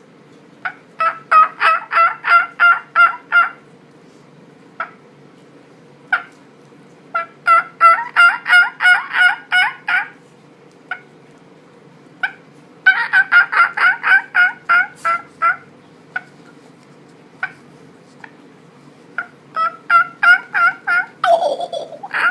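A man imitating a wild turkey with his bare voice, no call: four runs of about ten quick yelping notes, with single cluck-like notes between the runs.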